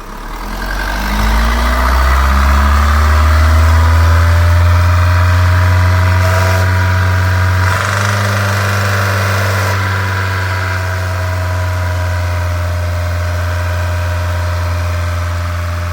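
Diesel car engine revved up over the first couple of seconds and held at a steady raised speed, asked for at 3000 rpm, to bleed air out of the fuel system after a new diesel filter was fitted. The revs drop slightly a little before halfway, then hold steady again.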